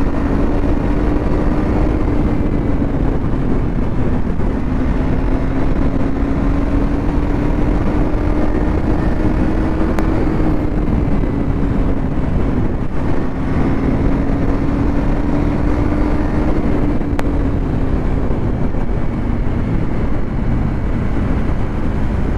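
KTM Duke 250's single-cylinder engine running at steady cruising speed. Its note rises and dips gently with the throttle and drops a little near the end as the bike slows. Dense wind and road noise lies underneath.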